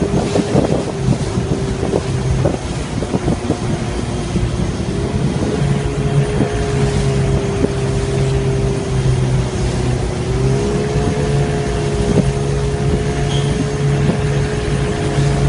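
Boat engine running at a steady speed, its pitch stepping up slightly twice, about a third and two thirds of the way through, over a steady hiss of wind and rushing water.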